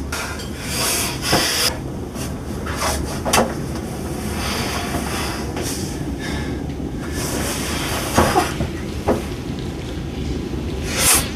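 A distressed man's heavy breathing and sniffing over a steady low hum, with a few soft knocks and a louder breathy rush near the end.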